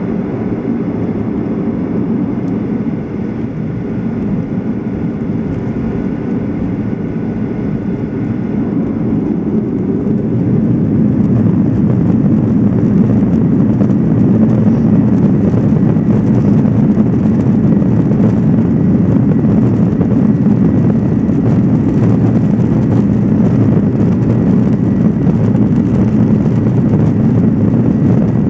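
Boeing 737-800 cabin noise during the takeoff roll, heard from a rear window seat behind the wing. The CFM56-7B jet engines grow louder about ten seconds in as they reach takeoff thrust, then hold a loud, steady rumble as the plane speeds down the runway.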